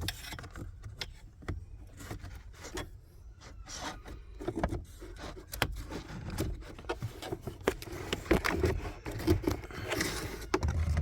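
Hands handling a car cabin air filter and its plastic housing: irregular clicks, taps, rubbing and scraping, busiest in the second half.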